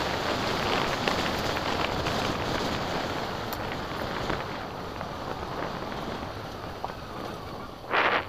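Wind buffeting the microphone and tyre noise on a gravel track while riding a motorcycle, with the engine running steadily underneath. A short loud burst comes near the end.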